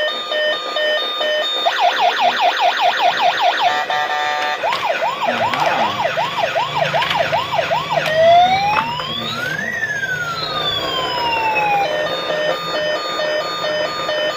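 Battery-operated toy ambulance's electronic siren cycling through its patterns. It starts with a steady on-off beeping, changes about two seconds in to a fast yelp, then to a slower wail, then to two long rising and falling sweeps crossing each other, and near the end goes back to the beeping.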